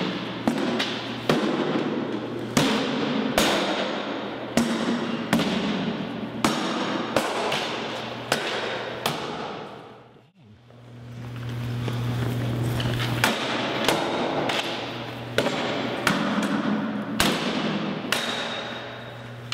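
Rapid series of sword blows, steel striking a lightweight balsa-wood plank shield, one to two sharp ringing cracks a second. A short pause comes about halfway through.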